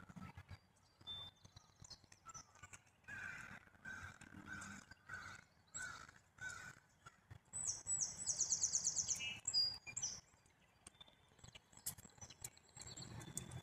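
Wild songbirds calling: a run of repeated mid-pitched calls, then a loud, high, rapid trill of about a second and a half about eight seconds in, over scattered light ticks.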